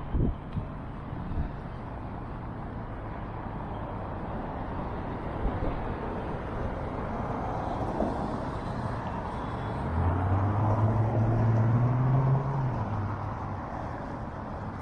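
Road traffic noise. Short knocks come near the start, and a motor vehicle's engine passes close about ten seconds in, its pitch rising as it speeds up before it falls away.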